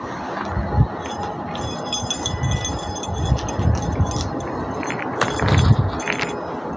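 Keychain box-cutter blade scraping and slicing through packing tape and plastic wrap on a cardboard box, with the keys on the ring jangling and clinking as the hand works.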